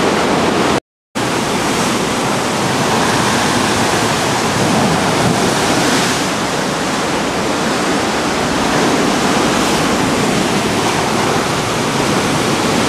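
Sea surf surging and washing through rock sea grottoes: a loud, steady rushing that swells gently now and then. It breaks off for a moment about a second in.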